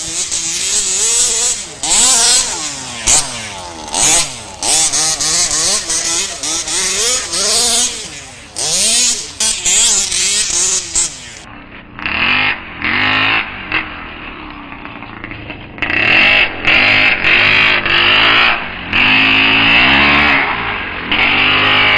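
Small 26 cm³ two-stroke engine of a 1:5 scale petrol RC buggy revving in repeated bursts as it is driven, its pitch rising and falling every second or two. From about halfway it sounds duller.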